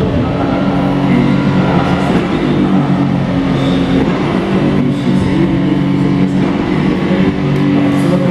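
Rock music with steady held guitar chords playing, with a Pagani supercar's V12 engine running beneath it.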